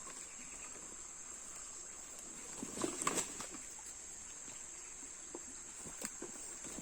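Insects droning in a steady, high-pitched chorus, with a short cluster of knocks and rustles about three seconds in.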